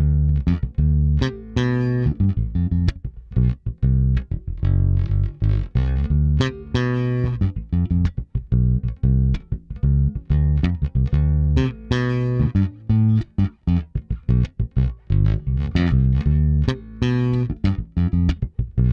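A Fender Custom Shop Empire 58 Precision Bass, with its split-coil pickup, played as a steady line of plucked low notes, some clipped short and some left to ring.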